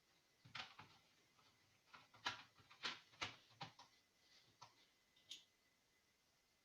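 A string of light, irregular clicks and taps, about a dozen, over a faint steady high-pitched tone.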